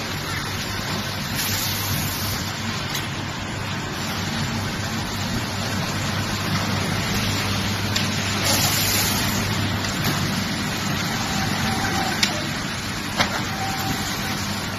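Automatic high-frequency welding production line running: a steady mechanical hum and noise with a few sharp clicks, and two short hisses of about a second each, one near the start and one about nine seconds in.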